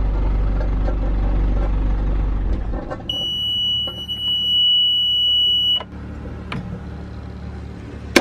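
Yanmar marine diesel engine running, then shut down a few seconds in. As it dies, the engine panel's alarm buzzer sounds one steady high beep for about three seconds, the usual low-oil-pressure warning with the key still on. The beep stops when the key is switched off, and a click follows.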